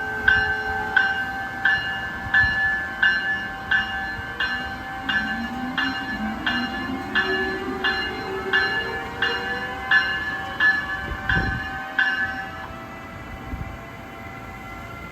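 A train's bell ringing steadily, about one and a half strokes a second, for some twelve seconds and then stopping. Under it a whine rises steadily in pitch, as of a train's motors pulling away and gathering speed.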